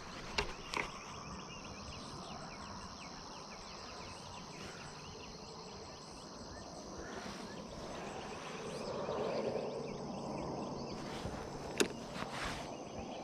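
Steady chirring of insects, with a brief swell of low noise about nine seconds in and a single sharp click near the end.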